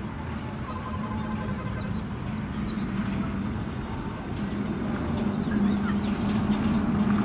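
Open-air pond-side ambience: small birds chirping on and off over a steady low hum and a thin, steady high-pitched whine.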